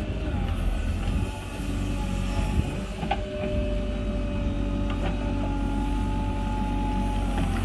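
Diesel engine of a JCB backhoe loader running steadily under load while its arm and bucket dig soil from a trench. A high steady whine over the engine changes pitch a few times, and there are a few short knocks, one about three seconds in and another about five seconds in.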